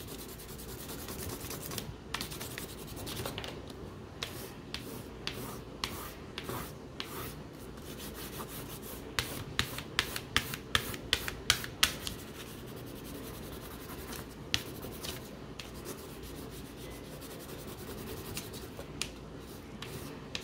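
A crayon shading across paper on a clipboard: a steady dry rubbing and scratching, with a cluster of sharper, louder strokes in the middle. This is the medium-tone layer of the green being built up.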